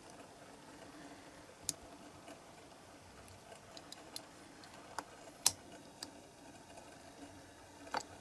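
Scattered sharp little clicks of a diecast Matchbox MG A's metal body and baseplate being squeezed together by hand, the rivets snapping into their holes; the loudest click comes about five and a half seconds in.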